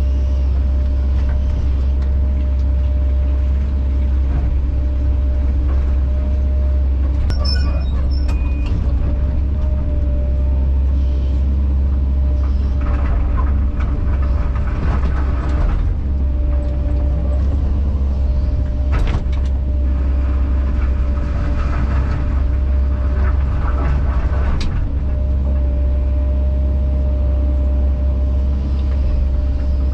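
Kobelco SK210 excavator's diesel engine running steadily under work, a deep hum with a steady whine over it, broken by bouts of clatter and a few sharp knocks.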